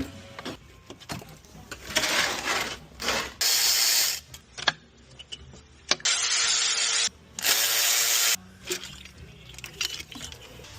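A power tool is run in several short bursts of a second or so each, with clicks of tools in between, during work on a VAG 2.0T's water pump.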